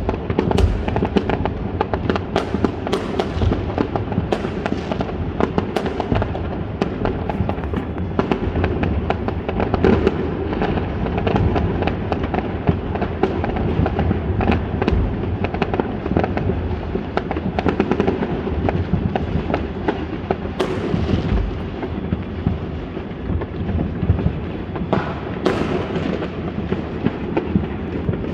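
Fireworks going off in a dense, continuous barrage of bangs and crackling, with a few louder single bangs standing out now and then.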